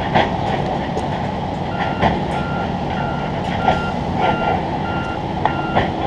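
Steady rumble of heavy machinery with a few sharp metallic knocks. From about two seconds in, a heavy-equipment backup alarm beeps at one pitch, about one and a half beeps a second.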